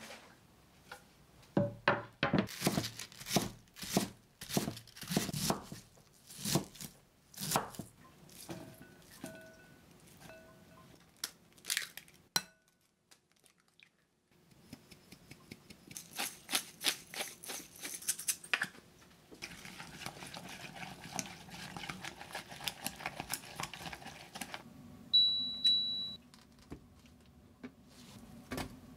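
Kitchen prep sounds: a plastic bag crinkling and being handled with knocks on the counter, then eggs cracked into a glass bowl and a run of quick taps. Near the end an induction cooktop gives a single high beep about a second long, followed by its faint low hum.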